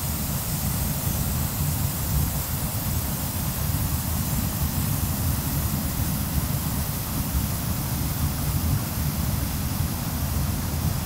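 A waterfall: a steady rush of falling water.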